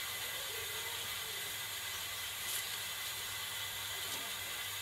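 Petrol pressure burner of an NVA Kleinküche field kitchen hissing steadily while it is being lit.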